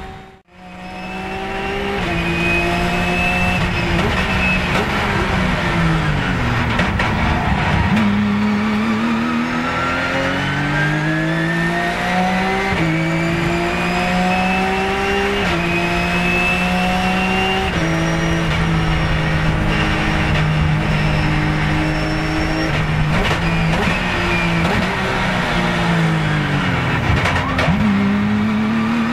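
Porsche 997 GT3 Cup's flat-six racing engine, heard from inside the cockpit at race pace. After a brief dropout at the start, the engine note climbs and drops suddenly at each upshift, holds fairly steady for a few seconds, and falls twice as the car slows for corners. It climbs again near the end.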